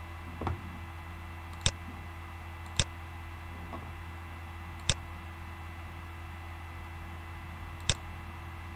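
Four sharp computer mouse clicks, spaced irregularly, over a steady low electrical hum.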